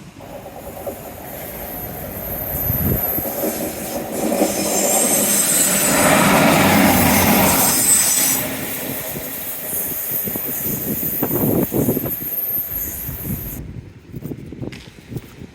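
A train passing close by with a heavy rumble and high-pitched wheel squeal. The noise builds over a few seconds, is loudest around the middle, then eases off, and the high squeal drops away abruptly near the end.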